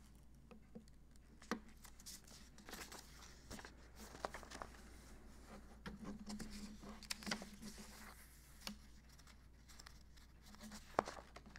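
Sheets of paper rustling and being handled on a desk close to a microphone, with scattered soft taps and a sharper tick near the end.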